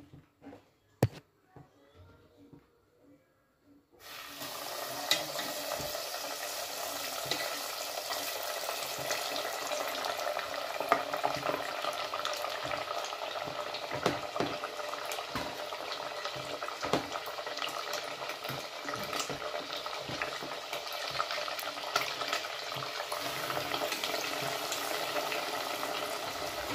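A single sharp click in a near-quiet first few seconds, then about four seconds in the flour-dredged pork chops go into the hot oil and it bursts into a loud, steady sizzle, deep-frying with constant crackles and pops.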